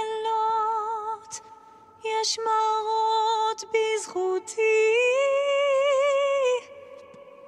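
A woman singing a song in long held notes with vibrato, in several phrases with short breaths between them. The melody climbs to a higher held note in the second half.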